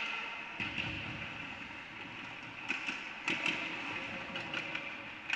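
Ice hockey play on the rink: skates scraping the ice over steady rink noise, with sharp clacks of sticks and puck, several in quick succession around the middle.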